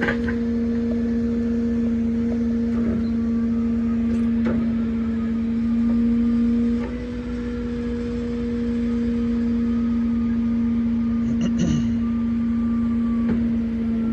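Truck-mounted loader crane at work: the truck engine and hydraulic pump run at a steady hum, which shifts slightly in level and pitch about halfway through as the crane's load or movement changes. A short metallic clatter comes a few seconds before the end.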